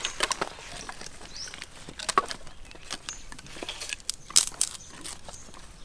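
Irregular wooden knocks and chops: a knife chopping on a wooden block, with sticks of firewood being handled.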